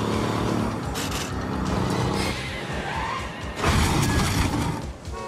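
Film action soundtrack: a Freightliner cab-over semi-truck's diesel engine running hard under a driving music score. About three-quarters of the way through there is a loud crash with skidding, as the truck forces its way through traffic.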